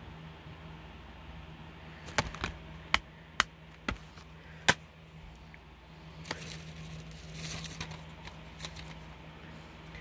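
Plastic Blu-ray cases being handled: about six sharp clicks and snaps over a few seconds, then a few seconds of rustling as the next case in its cardboard slipcover is picked up.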